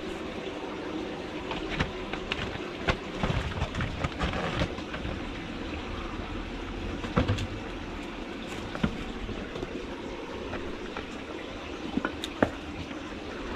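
Kittens scampering and playing: scattered light knocks and taps, a few sharper ones about seven and twelve seconds in, over a steady background hiss.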